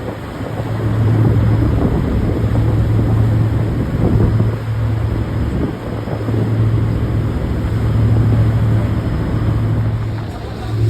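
Motorboat engine running steadily with a low drone, under the rush of water and wind as the boat moves.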